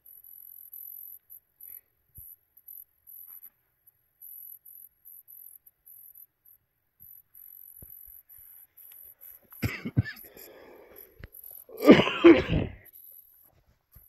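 Crickets chirping in short, high pulses, then a person coughing: a brief cough about ten seconds in and a louder one about twelve seconds in.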